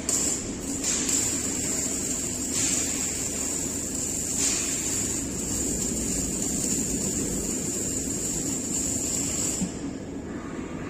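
Electric welding arc burning steadily on a steel pipe joint: a continuous hiss with a high steady whine, which cuts off about a second before the end as the arc is broken.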